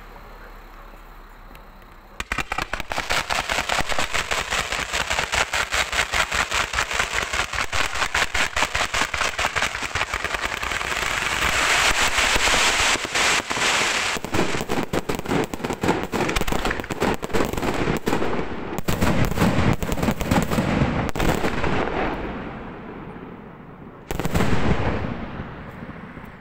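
Fireworks display firing a rapid barrage of sharp reports, many a second, starting suddenly about two seconds in and running for about twenty seconds before dying away. Another short loud volley comes near the end.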